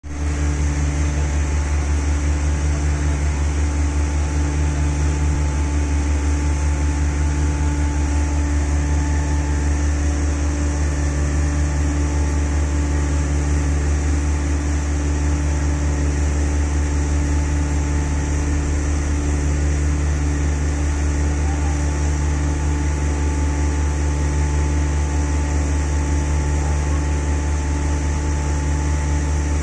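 Heavy construction machinery running with a steady, unbroken low drone and hum, with a faint high hiss over it.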